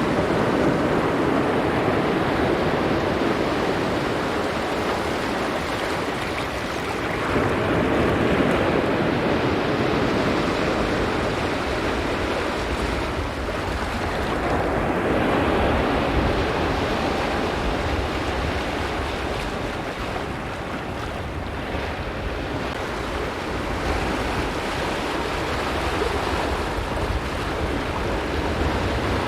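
Sea waves breaking and washing over a rocky shore: a continuous rush of surf that swells every seven or eight seconds as each wave comes in.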